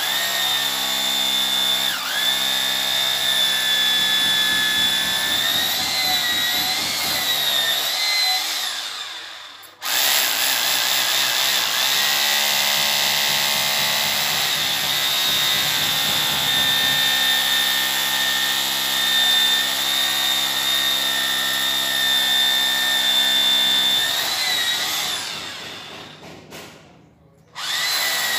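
Electric hand drill running in long stretches, its whine dipping and wavering in pitch, winding down to a stop twice and starting again each time.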